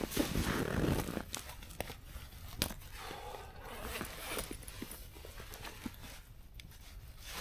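Rustling of a heavy winter coat being pulled off, with shuffling and crunching in snow, loudest in the first second, and a sharp click about two and a half seconds in.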